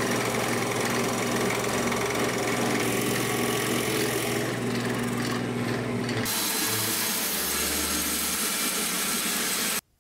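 Drill press running with a Forstner bit boring into wood: steady motor hum under the noise of the bit cutting. The sound changes about six seconds in and cuts off abruptly just before the end.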